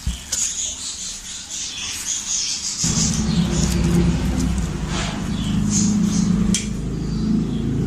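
Hands squeezing and kneading a thick, moist cabbage-and-mushroom batter in a steel bowl: wet squelching and rubbing. About three seconds in, a low steady hum, like an engine, comes in and becomes the loudest sound.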